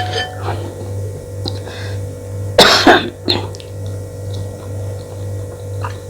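A woman coughs and clears her throat, one sharp cough about two and a half seconds in and a smaller one just after, while eating very spicy food. A steady low hum runs underneath.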